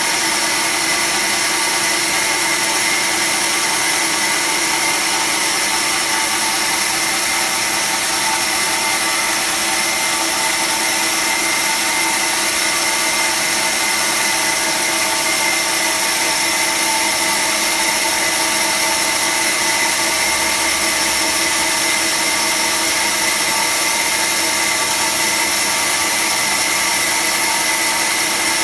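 Automatic band saw running steadily: an even mechanical whine with several fixed tones over a hiss, holding level throughout.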